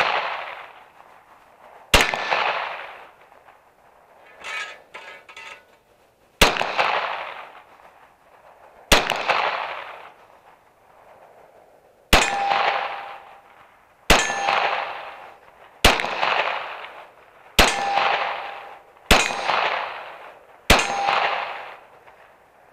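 Nine shots from a Glock 17 9mm pistol, fired one at a time at an uneven pace, each echoing off the surroundings as it fades. Several are followed by a clear ringing tone, steel targets being hit. The last shot empties the magazine and the slide locks back.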